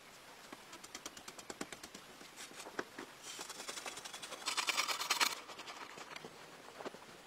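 A hand tool scraping and scratching at dry packed earth: a run of quick ticks and scrapes, with a louder gritty scraping stretch about four and a half seconds in.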